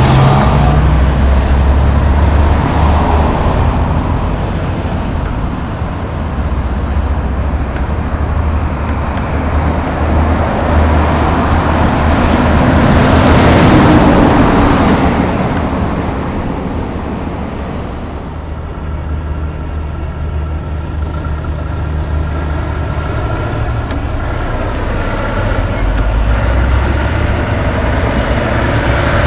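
Heavy diesel truck traffic. An empty logging truck with its trailer piggybacked on the deck passes close by about halfway through, getting louder and then fading. Near the end a semi-truck's diesel engine comes closer with a steady note that rises as it pulls away through the intersection.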